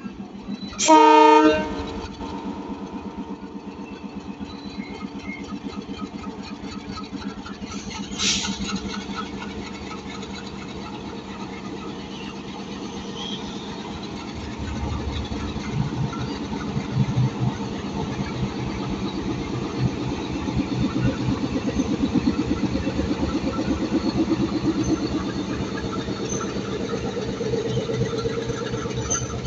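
Sri Lanka Railways M10A diesel-electric locomotive sounding one horn blast about a second in, the loudest sound here. About eight seconds in there is a brief shrill sound. Then the diesel engine runs with a steady pulsing beat, getting louder from about halfway as the train pulls out of the station.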